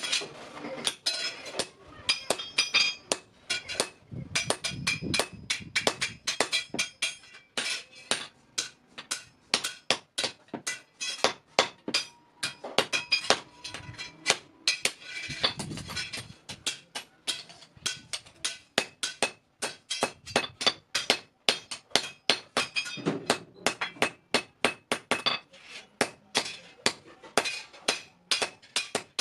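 Hand hammer striking steel in a steady run of blows, about two to three a second, each with a short metallic ring: a blacksmith forging a bicycle gear into a tool.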